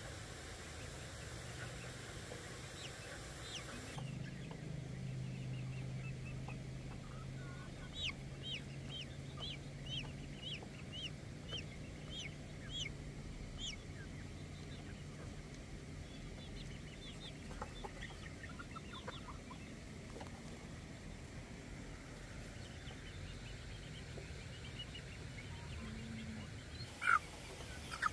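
Flock of young chickens peeping and clucking, with a run of short, high, falling chirps repeated over several seconds and a louder squawk near the end.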